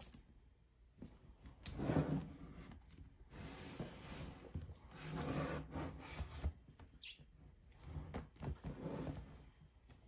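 Cardboard drone packaging being handled: rubbing and sliding in several short swells, with a sharp click about seven seconds in.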